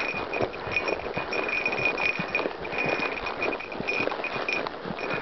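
Tennessee Walking horse's hooves falling on a grassy dirt trail, with the rustle and knock of the horse and tack moving under the rider. A steady high-pitched tone runs behind it, breaking off briefly now and then.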